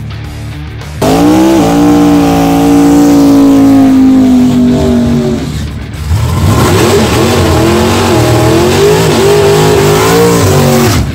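Drag car's engine held at high revs in a burnout, rear tyres spinning and smoking. It starts suddenly about a second in, holds steady for a few seconds, drops off briefly around the middle, then comes back with the revs wavering up and down.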